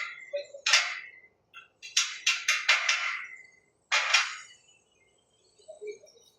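Irregular hammer blows with a short metallic ring: a single blow, then four in quick succession, then one more about four seconds in. Faint bird chirps follow.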